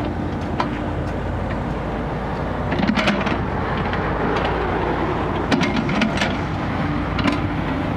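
Kubota mini excavator's diesel engine running steadily as the boom and bucket are worked, with scattered sharp clicks and knocks, most of them in the second half.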